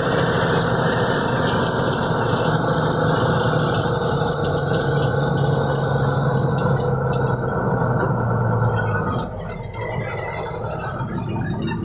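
Small engine of the custom 'bekecot' vehicle running steadily while it drives along. About nine seconds in, the engine sound drops away and a choppier sound takes over.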